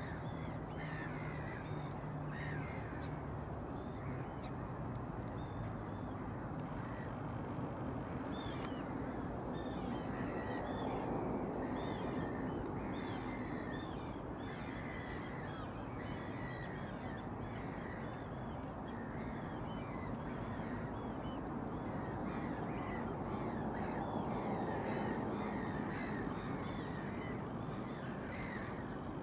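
Many birds calling, short calls repeating and overlapping one another throughout, over a steady low rush of background noise.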